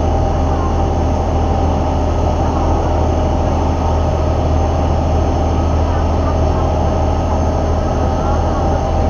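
Steady drone of a river tourist boat's engine running under way, with a strong low hum and water rushing and churning along the hull.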